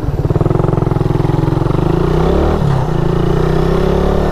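Suzuki Raider 150's single-cylinder four-stroke engine pulling away and riding, heard from on the motorcycle, with a brief dip in engine pitch about two and a half seconds in.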